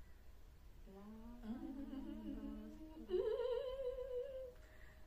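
A woman humming a few notes with her mouth closed, low at first and then rising about three seconds in to a higher, held note with a wavering pitch.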